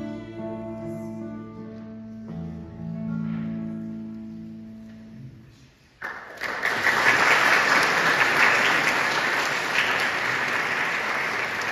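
The song's last guitar chords ring out, shifting once, and fade away; about six seconds in, an audience breaks into applause that carries on steadily.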